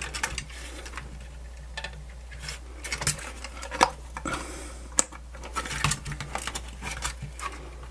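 Irregular clicks, taps and short scrapes of small plastic and metal radio parts being handled and worked apart during disassembly, the two sharpest knocks about four and five seconds in, over a steady low hum.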